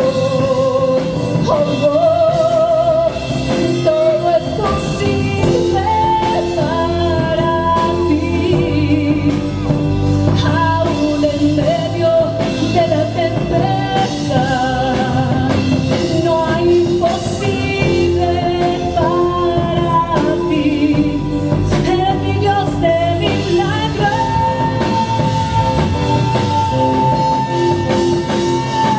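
A woman singing a Christian worship song over band accompaniment, her voice wavering with vibrato and ending on a long held note in the last few seconds.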